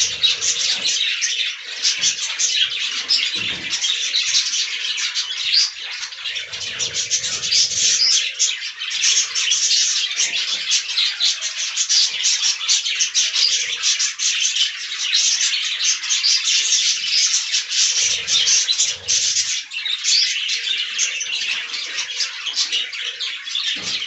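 A flock of budgerigars chattering, a dense, continuous mass of high-pitched chirps and warbles from many birds at once.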